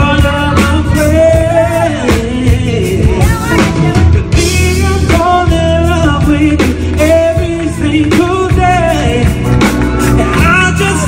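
Live band playing: a man singing over electric guitar, bass and drums.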